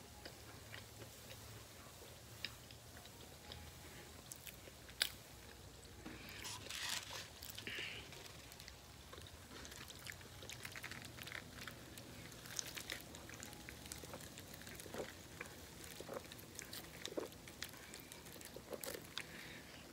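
Faint chewing and mouth sounds of a person eating a Hot Pocket off a paper plate, with scattered soft clicks and taps and one sharper tap about five seconds in.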